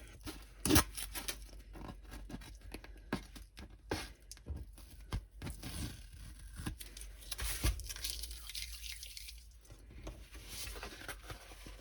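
Plastic and paper packaging of a diamond painting kit being handled and torn open: irregular crinkling and rustling with small clicks, and a sharper crack about a second in.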